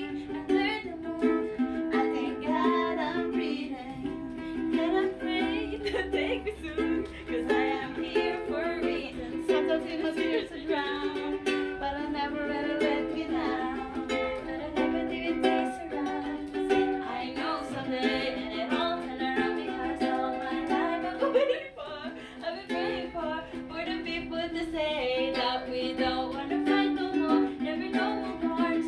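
Ukulele strummed in a steady rhythm, with a woman singing along, heard in the small, hard-walled space of an elevator car. The playing breaks briefly about three-quarters of the way through.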